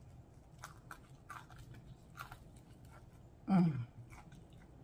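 A person chewing crisp fried chicken: a run of small sharp crunches and crackles, with a short vocal sound, falling in pitch, about three and a half seconds in.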